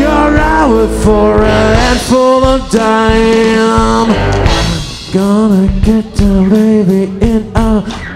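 Live rock band playing, with a singer's voice carrying the melody over the instruments; a long held note about three seconds in.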